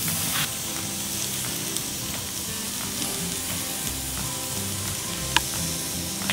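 Venison fillets sizzling steadily on a hot cast-iron griddle plate, with two sharp clicks of metal tongs against the plate, one about half a second in and one near the end.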